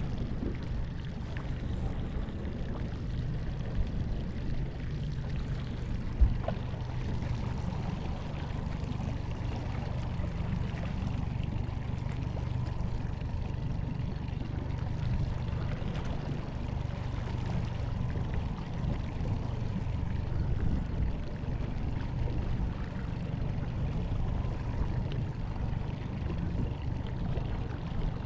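Steady wind on the microphone and water against a small fishing boat, under a low steady hum, with two short knocks about four and six seconds in.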